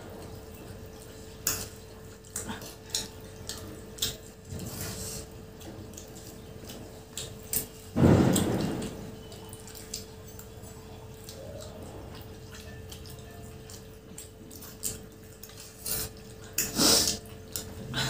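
Two people eating noodles with forks from plastic plates: slurping and chewing, with forks clicking against the plates. One louder burst of mouth noise comes about eight seconds in. A faint steady hum sits underneath.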